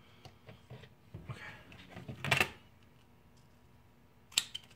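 Scattered small clicks and handling noises of tape and tools on a workbench, with a louder rasping noise about two seconds in and a short one near the end, as strips of tape are laid over a phone screen.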